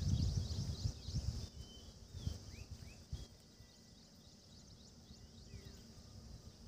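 Wind rumbling on the microphone, fading away over the first few seconds, while many birds chirp with short, quick rising and falling calls.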